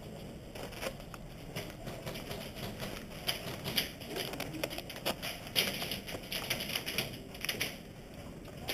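Airsoft guns firing: irregular single clicks and several short bursts of rapid clicks, the densest a few seconds in and again past the middle.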